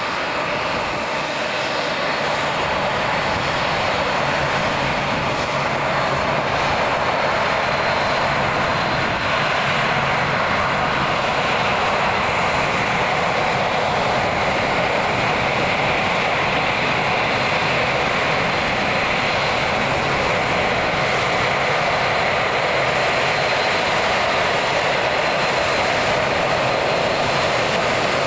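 Airbus A380's four jet engines running at taxi thrust as the airliner taxis close by: a steady jet roar with a thin high whine, growing louder over the first few seconds and then holding steady.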